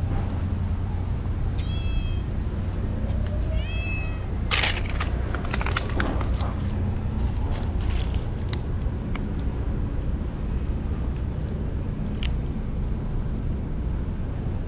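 Stray tabby cat meowing twice, two short meows about two seconds apart within the first four seconds, followed by a burst of crackling rustles, over a steady low rumble.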